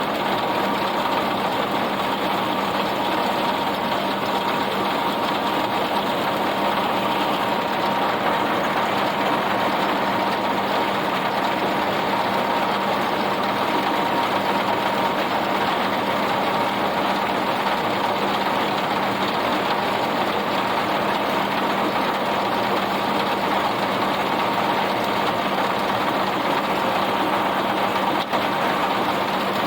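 Farm tractor engine running steadily while pulling and powering a round baler through hay windrows, a constant mechanical drone with a held whine over it.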